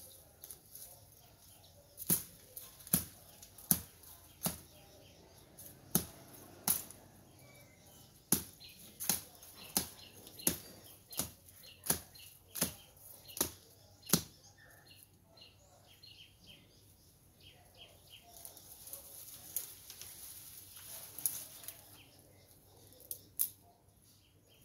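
A machete chopping woody brush stems near the ground: a steady run of about fifteen sharp strikes, a little under a second apart. After that, leaves and branches rustle as they are pulled, with a few lighter strikes near the end.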